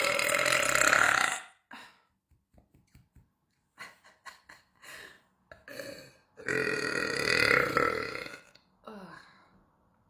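A woman burping loudly: one long drawn-out burp that has begun just before and ends about a second and a half in, then a second long burp about six seconds in, lasting around two seconds.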